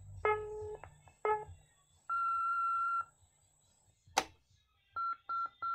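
Electronic signal tones from a Panasonic KX-T2727BS telephone answering machine: two short buzzy tones, then a steady beep about a second long. After a sharp click comes a run of short beeps at the same pitch.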